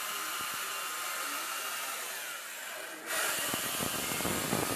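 Chainsaw cutting into a block of ice, a steady high-pitched noisy whine. It eases off for a moment around three seconds in, then comes back louder and rougher.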